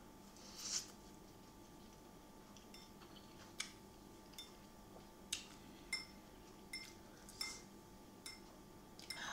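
A metal fork clinking against a ceramic bowl of noodles: about seven light, separate clinks in the second half, each with a brief ring. Near the start there is a short breathy sucking sound from the mouth as she eats.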